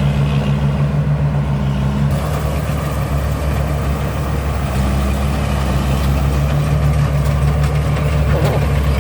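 Cummins diesel engine of a combine harvester running steadily with a deep, even hum.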